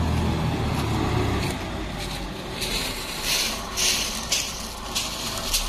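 A heavy diesel engine running at low revs, loudest in the first second and a half and then fading to a lower hum. From about halfway in, short crunching hisses come roughly twice a second over it.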